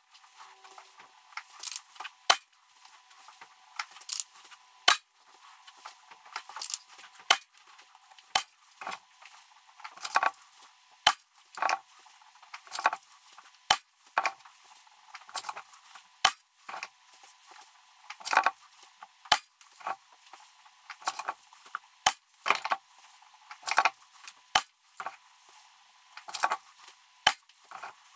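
Two .22 bullpup PCP air rifles fired shot after shot through a chronograph: a string of sharp cracks, about one or two a second, with weaker clicks between them, likely the side-lever actions being cycled. The Kral Puncher Breaker is fired first; about halfway through, the FX Wildcat MKIII takes over.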